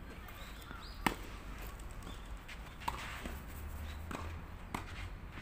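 Tennis balls struck by rackets in a rally: three sharp hits a little under two seconds apart, the first the loudest.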